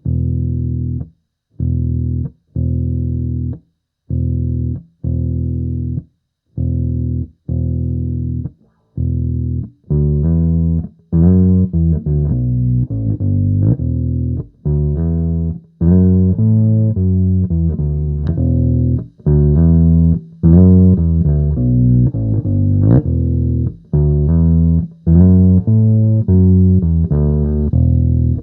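Electric bass guitar played through a Sonicake B Factory bass preamp. For about ten seconds a single low note is struck about once a second, each one held and then cut short. After that comes a faster riff of changing notes with a brighter tone.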